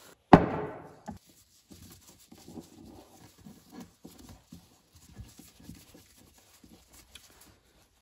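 One loud knock about a third of a second in, then faint scattered clicks and scrapes as a snowmobile carburetor is handled and its screws are taken out with a screwdriver and set down on a wooden workbench.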